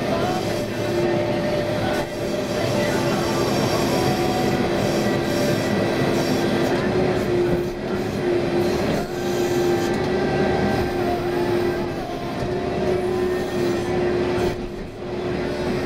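Backhoe's diesel engine running steadily under working load, with a steady whine over it.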